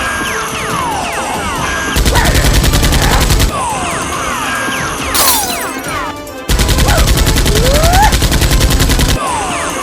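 Two bursts of rapid machine-gun fire, the first about a second and a half long about two seconds in, the second about three seconds long near the end. Between the bursts come repeated falling whistle tones over background music.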